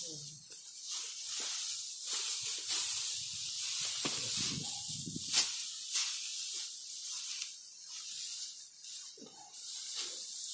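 Dry straw rustling and crackling as bundles are lifted, shaken out and spread on the ground, with a sharp snap about five seconds in.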